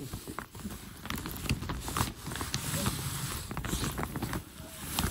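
Crinkling and rustling of a glossy plastic gift bag being handled and rummaged through, a dense run of irregular crackles.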